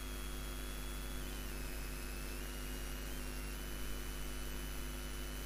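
Steady electrical mains hum with an even background hiss, the noise floor of the recording. A faint high whine steps down and back up in pitch a few times.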